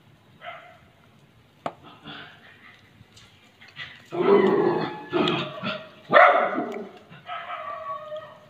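Dog barking, a run of loud barks in the second half, with one sharp tap earlier on.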